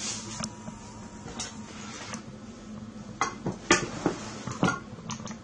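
Kitchen dishes and utensils knocking and clinking in a string of irregular sharp knocks, loudest about three and a half to four and a half seconds in.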